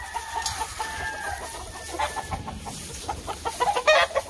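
Gamefowl roosters in their pens: one long, drawn-out crow for about the first two seconds, then a short, louder call near the end.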